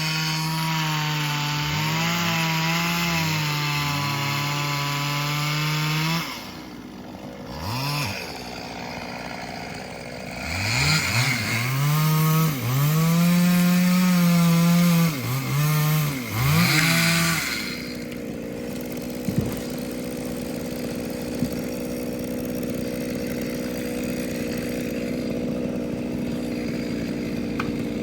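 Two-stroke chainsaw running at full throttle while cutting wood, its revs dipping and climbing again several times. After about 18 seconds it drops to a steady, quieter engine note.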